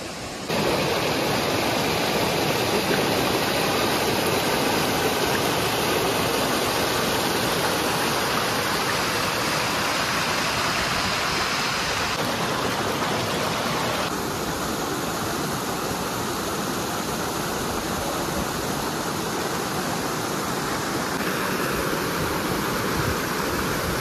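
Steady rush of water from a waterfall and its rocky stream. It steps up in loudness about half a second in and eases slightly around the middle.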